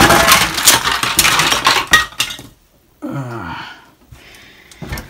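Plastic toy train track pieces and parts tipped out of a cardboard box, clattering and rattling together in a dense pile-up that stops about two and a half seconds in.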